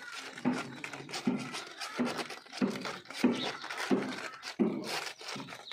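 A litter of Mudhol hound puppies suckling at their mother: a regular run of soft, short suckling and snuffling sounds, about three every two seconds.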